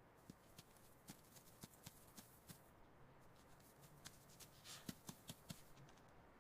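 Faint, irregular light clicks and scratches, a mouse scurrying, with a brief soft rustle about three-quarters of the way through.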